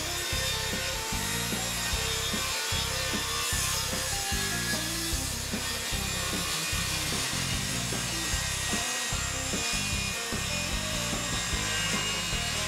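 Corded circular saw ripping a 3-inch strip off a plywood sheet along a straight-edge guide, the blade cutting steadily through the wood.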